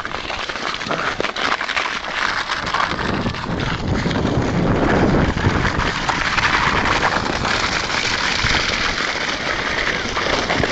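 Steady hiss and scrape of sled runners sliding downhill over snow, mixed with wind buffeting the microphone; louder in the middle of the run.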